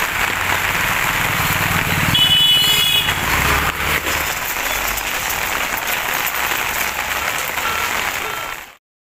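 Heavy rain pouring onto a street, a dense steady hiss, with a vehicle driving on the wet road about two to four seconds in and a brief high tone around the same time. The sound cuts off suddenly just before the end.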